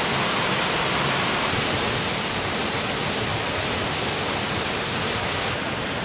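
Coal Mine Falls, a thin waterfall dropping over a rock ledge into a plunge pool: a steady rush of falling water.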